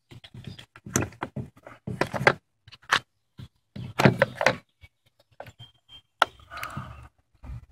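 A series of sharp plastic clicks and knocks from handling a plastic hard-case control box: its side latches are unclipped and the lid is lifted open.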